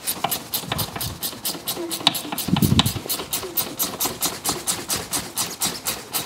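Ratchet spanner clicking quickly and evenly, about seven clicks a second, as a brake caliper bolt is run in.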